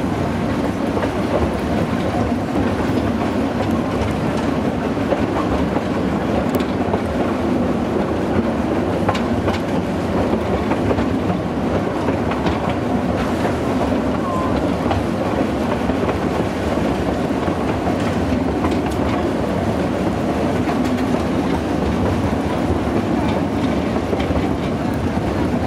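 Narrow-gauge railway carriages running along the track, heard from on board an open-sided wagon: a steady rumble and rattle of wheels on rails, with scattered clicks.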